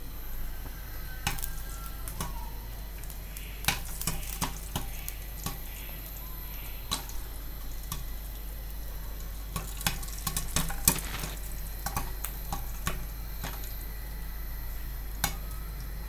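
Popcorn kernels heating in oil in a covered pan: a steady sizzle with about a dozen scattered sharp pops, typical of the first kernels starting to pop.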